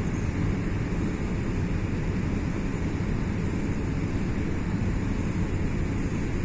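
Jet airliner cabin noise on the approach: a steady, even, low rush of engine and airflow sound that does not change.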